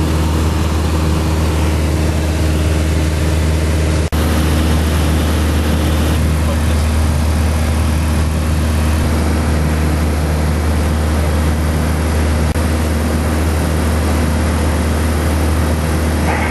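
Light aircraft's engine and propeller droning steadily, heard from inside the cabin, with a momentary dropout about four seconds in.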